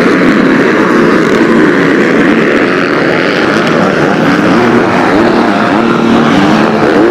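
Several motocross bikes racing on the track together, their engines revving up and down as they accelerate and shift.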